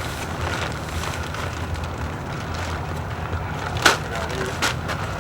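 Low steady rumble of wind on the microphone, with two sharp knocks or clicks near the end.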